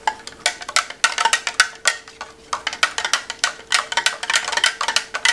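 A spoon stirring in a cup, clinking against it in quick, irregular taps, several a second and busier from about a second in, as flavour powder is mixed into thickened water. A faint steady hum runs underneath.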